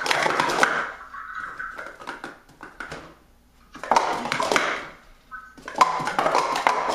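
Plastic sport-stacking cups clattering in rapid bursts of clicks as a 3-6-3 stack is upstacked and downstacked at speed on a stacking mat, with short pauses between bursts.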